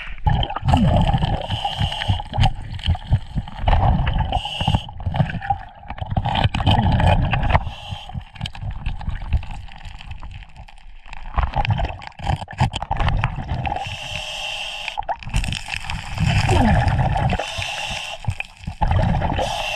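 Underwater gurgling and bubbling of river water heard through a submerged camera, irregular and churning, with a few scattered clicks and knocks.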